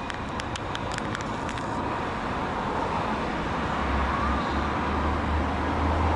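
Steady background noise of road traffic, with a low rumble building from about four seconds in and a few light clicks in the first second and a half.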